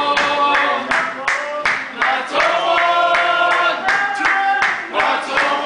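A group of women singing an unaccompanied song with steady hand clapping, about three claps a second.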